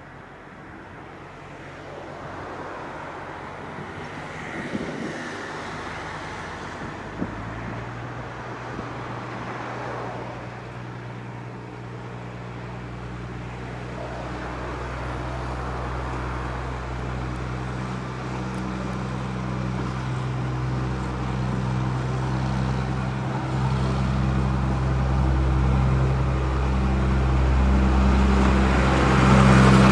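Ffestiniog Railway narrow-gauge diesel locomotive hauling coaches, its engine running steadily and growing louder as it approaches. It is loudest near the end as it draws alongside, with wheel and rail noise.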